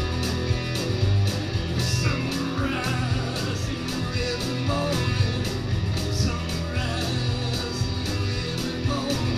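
Two electric guitars playing an instrumental rock passage over a steady drum beat, with wavering bent notes from a lead line.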